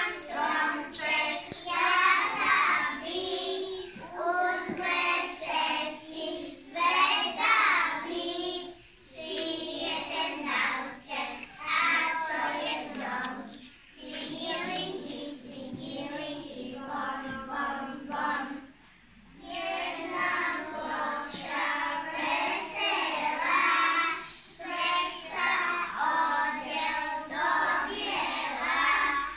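A group of young children singing a song together, with a few short breaks between lines.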